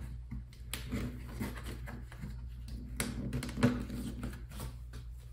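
Light plastic clicks and fabric rustling as a toy wrestling ring's cloth mat is hooked onto the hooks around the plastic ring frame, with a sharper click about two-thirds of the way in. A steady low hum runs underneath.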